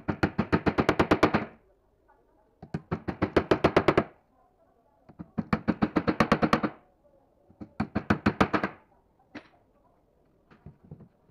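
A hammer tapping small white plastic pads into the corners of a wooden slat frame: four runs of quick, light blows, about eight a second, one run per corner, then a few single lighter knocks near the end.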